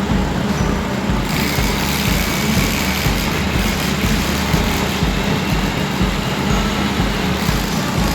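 Heavy engine running steadily, with a pulsing low rumble under a dense, even machine noise.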